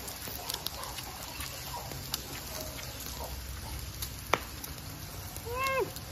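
Quiet chewing and small table clicks, one sharp click about four seconds in, then near the end a single short whine from a dog, rising and falling in pitch.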